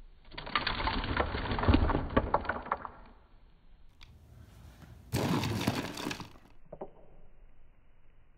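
About a hundred plastic Star Wars action figures toppling into one another like dominoes on a cork board: a rapid clatter of many small plastic knocks lasting about three seconds. A shorter burst of noise follows about five seconds in.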